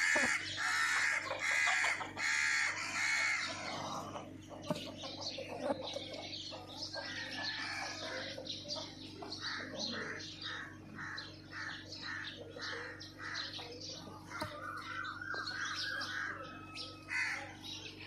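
A flock of house sparrows chirping as they feed on the ground, in runs of quick chirps about two a second. A louder bird call repeats several times over the first few seconds.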